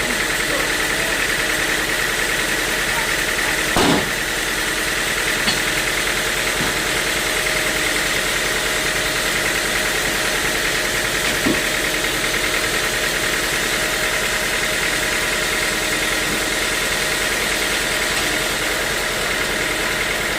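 Sawmill machinery running steadily with a constant hum and hiss, broken by a brief knock about four seconds in and another about eleven seconds in.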